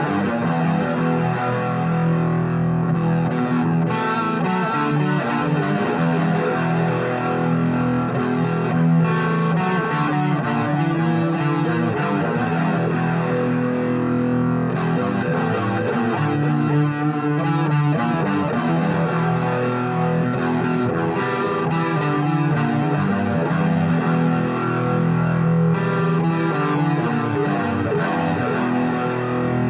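Stratocaster-style electric guitar played with the fingers through a Vox Valvetronix AD15VT modelling amp, notes ringing on and overlapping without a break.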